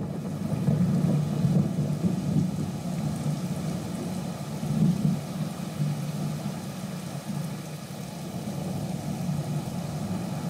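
Storm sound effect: a low, rolling rumble with a steady hiss above it, swelling a little about a second in and again about five seconds in.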